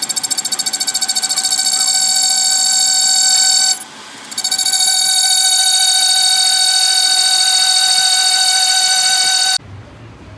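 A loud, steady buzzer-like alarm tone at one fixed pitch with a fast ripple in it. It sounds for about four seconds, stops for about half a second, then sounds again for about five seconds and cuts off sharply.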